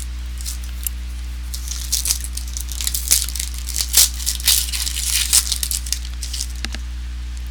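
Football trading cards being flipped and slid against one another, making a quick run of papery clicks and swishes in the middle, over a steady low electrical hum.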